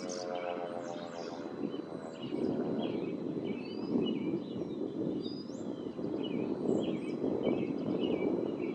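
A Federal Signal 2001-130 siren's tone falling slightly and fading out in about the first second and a half. After it, a steady rush of wind and birds chirping.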